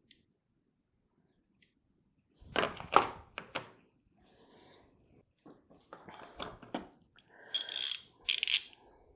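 Chrome ratchets and sockets from a budget mechanics tool set being handled: sharp metal clicks and knocks, loudest about two and a half seconds in, then a quick run of ringing metallic clicks near the end as a ratchet is worked.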